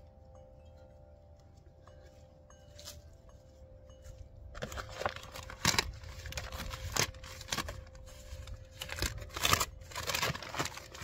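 Wind chimes ringing with long, steady tones. About halfway in, loud irregular rustling and scraping with sharp crackles sets in and drowns them out.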